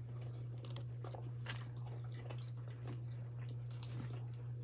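A person chewing a soft pretzel with nacho cheese, with irregular small wet mouth clicks and smacks. A steady low hum runs underneath.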